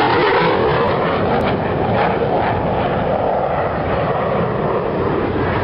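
Loud, steady aircraft engine noise that eases a little about a second in.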